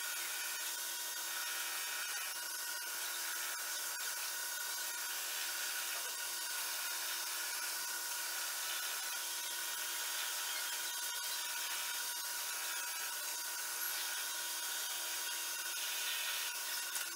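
Metal lathe running with its chuck spinning while a cutting tool turns a workpiece: a steady hiss of cutting over a steady machine whine.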